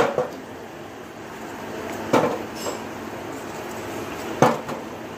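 Steel rod knocking against glowing hollow sawdust charcoal briquettes in a metal tray: three sharp, clinking knocks about two seconds apart, over steady background noise.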